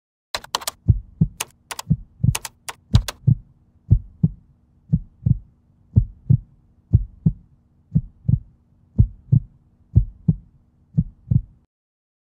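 Heartbeat sound effect: low double thumps, about one pair a second, over a faint steady hum. Sharp clicks come in among the first few beats, and it all stops shortly before the end.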